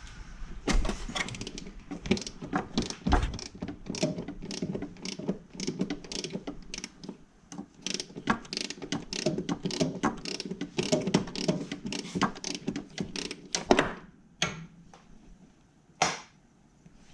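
Hand socket ratchet clicking in rapid, irregular strokes as a fastener under the car is turned, stopping about fourteen seconds in, followed by a single metallic knock a couple of seconds later.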